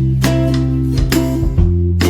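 Background music: a strummed, plucked-string tune over a steady bass line.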